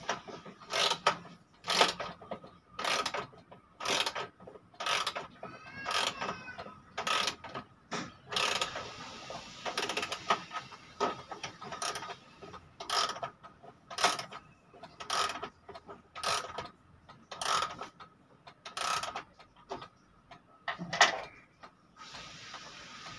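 Freshly oiled old key-wound pendulum wall clock, its mechanism clicking about once a second as its hands are set and it is started.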